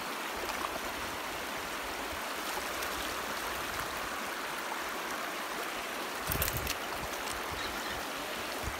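Steady rush of flowing river water. A brief cluster of clicks with a low thump about six seconds in.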